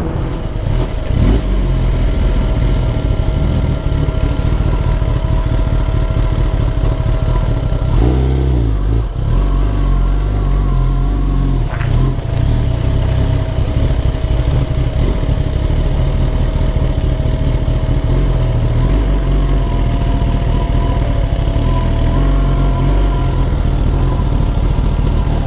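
Kawasaki ZX-10R's inline-four engine running steadily under way, with a short break in its even note about eight seconds in.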